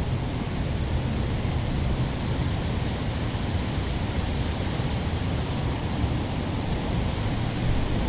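Urban park ambience: a steady, even rumble and hiss with no distinct events, heaviest in the low end.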